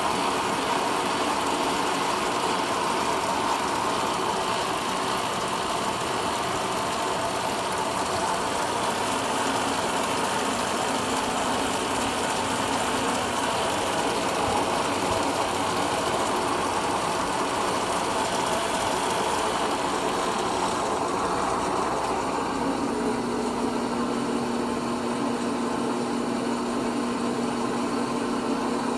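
Pratt & Whitney lathe running under power, its gear head turning over with a steady mechanical hum and gear whine. About 21 seconds in the sound changes: the higher part fades and a lower steady hum settles in.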